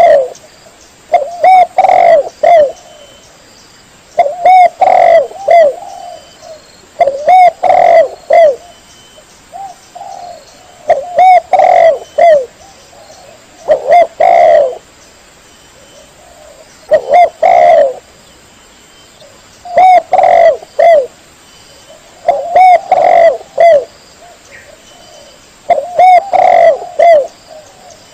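Spotted dove cooing: a short phrase of several coos, repeated about every three seconds.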